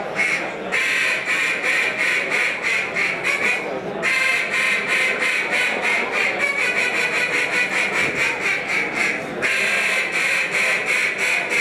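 A contest mallard duck call blown by hand: rapid runs of hen quacks and chatter. Short breaks for breath come about a second in, at four seconds and at about nine seconds, and the notes come faster in the stretch before the last break.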